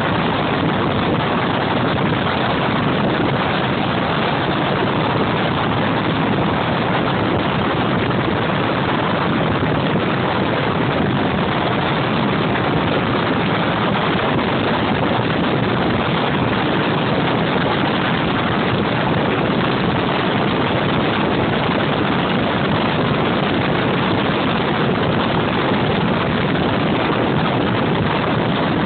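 Steady, even rush of noise picked up by a camera riding on a turbine-powered JetMach Sport 60 model jet in flight: the turbine and the airflow over the airframe, with no change in pitch or level.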